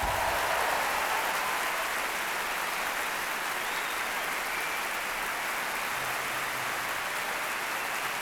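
A large theatre audience applauding steadily just after a fiddle and drum number ends.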